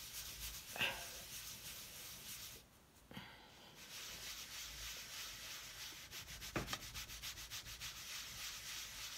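A hand rubbing homemade leather balm into a piece of leather: fast back-and-forth rubbing strokes with a soft scrubbing hiss. It pauses briefly about three seconds in, then resumes.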